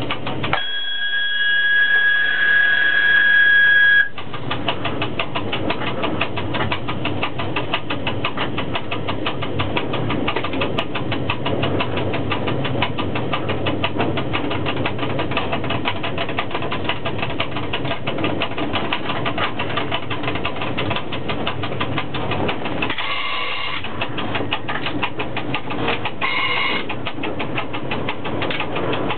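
Cab of a ChS4T electric locomotive rolling slowly into a station. Right after the red signal is called, a steady high two-tone warning whistle sounds for about three seconds, then stops abruptly. After that come steady running noise with rapid, even ticking and two short pitched sounds near the end.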